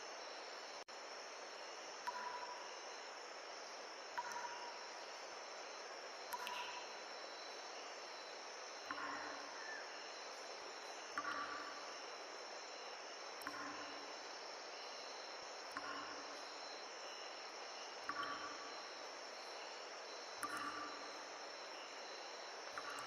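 A forest stream's steady rushing, with insects trilling continuously above it. A soft, short sound repeats about every two seconds.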